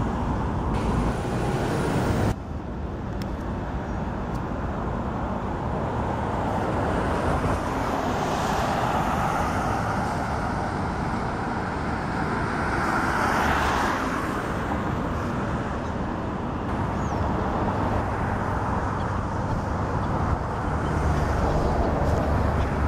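Steady road-traffic rumble and hiss, with vehicles swelling past between about 8 and 14 seconds in.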